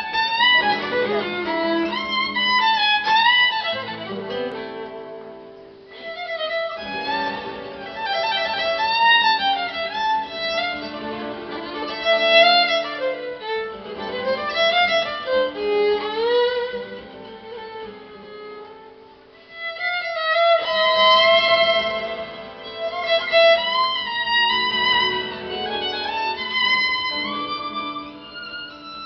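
Live acoustic band: a violin plays a flowing melody over acoustic guitar accompaniment. The music drops quieter twice, about five and nineteen seconds in.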